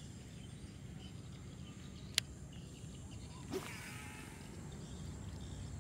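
Faint rural outdoor ambience: a steady low rumble and a thin high hiss, with a faint short animal call about three and a half seconds in. One sharp click stands out a little over two seconds in.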